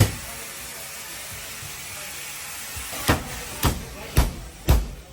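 Hammer blows on a car body panel: one strike at the start, then a steady hiss for about three seconds, then the hammering picks up again at about two blows a second.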